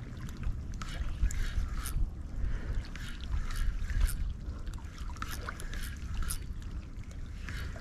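Seawater lapping and splashing at the shore in irregular small crackles, over a steady low wind rumble on the microphone.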